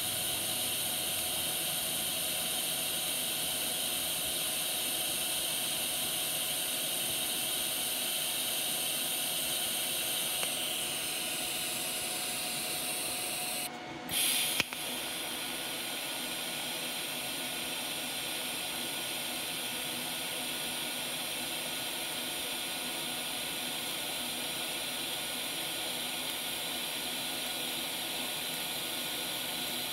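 A TIG welding arc on thin stainless steel hissing steadily. The sound breaks off for under a second about halfway through, then comes back with a short sharp crack and carries on.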